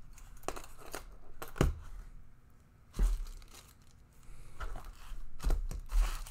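Packaging rustling and crinkling while items are handled, with several sharp knocks, the loudest a few in a row near the end.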